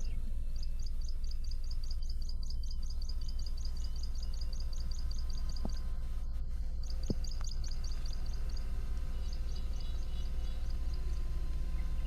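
A bird calling in quick runs of high, evenly repeated chirps, about eight a second, three runs of a few seconds each, over a steady low rumble.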